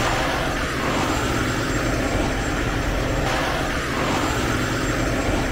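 Kenworth semi truck's diesel engine running steadily close by: an even, low rumble.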